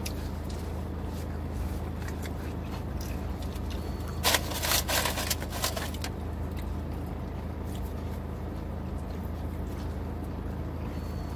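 Steady low hum of a car idling, heard inside the cabin. About four seconds in there is a burst of rustling and tearing, lasting about two seconds, as a burrito and its wrapper are torn and eaten.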